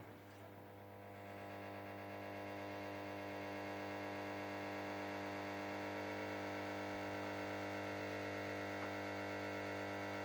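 Ariston Margherita washing machine running on its cottons wash with a steady electric hum. The hum swells over the first couple of seconds, then holds level.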